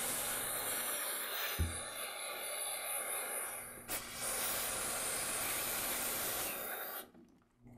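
Aerosol cleaner spraying through a straw nozzle onto a small two-stroke trimmer carburetor: a steady hiss in two long bursts, with a brief break about four seconds in, stopping shortly before the end.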